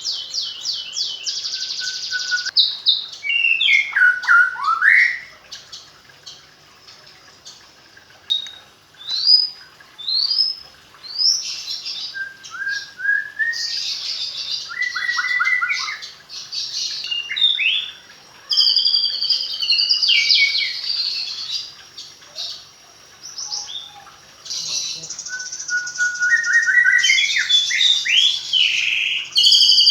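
White-rumped shama (murai batu) singing a long, varied song of clear whistles, rising and falling glides, rapid trills and harsh chattering phrases, broken by short pauses. It is laced with fluent learned fill-in phrases (isian) from a hand-reared bird.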